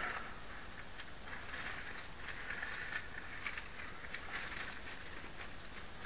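Bible pages being leafed through: faint, irregular paper rustling with light ticks, a little louder about a second and a half in and again around four seconds.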